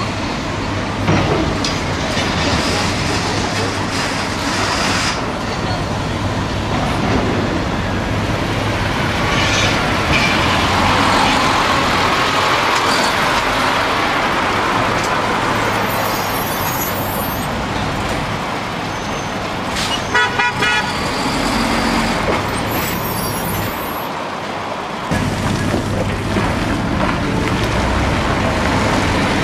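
Heavy dump truck's diesel engine running amid street noise, with a short burst of horn-like tooting about twenty seconds in.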